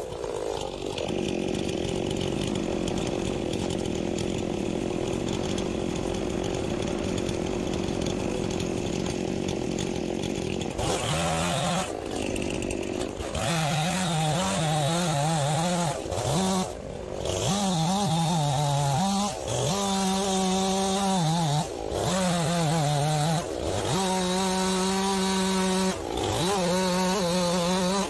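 Stihl MS 291 two-stroke chainsaw bucking a log into rounds: for the first ten seconds or so a steadier, lower engine sound runs, then the saw cuts at full throttle, its pitch sagging as the chain loads in the wood and recovering, with brief let-offs of the throttle several times between cuts.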